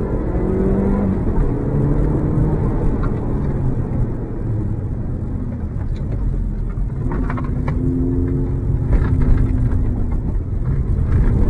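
Audi S3 8L's turbocharged 1.8-litre 20-valve four-cylinder engine heard from inside the cabin, accelerating with the revs rising twice through the gears over a low rumble, with a few short crackles.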